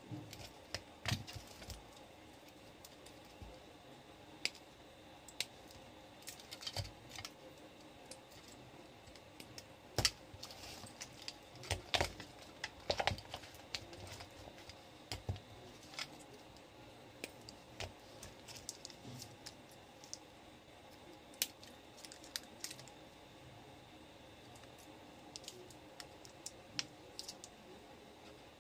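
Cylindrical lithium-ion battery cells being handled: light, irregular clicks and taps as the cells knock against one another and the bench, with a brief busier patch about halfway through.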